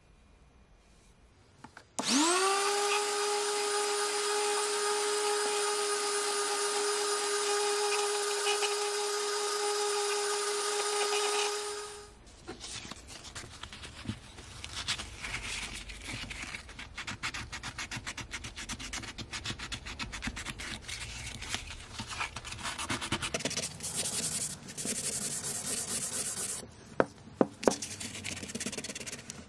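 Hickory hammer handle being hand-sanded with 400-grit sandpaper: an irregular scratchy rubbing. Before it, a loud steady whine starts about two seconds in with a quick upward sweep in pitch, then stops suddenly near the middle.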